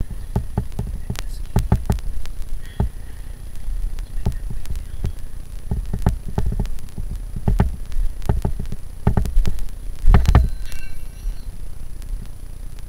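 Irregular knocks and thuds with a low rumble from a caver climbing a ladder in a narrow cave-entrance shaft, as boots, hands and gear bump the rungs and the shaft walls. The loudest cluster of knocks comes about ten seconds in.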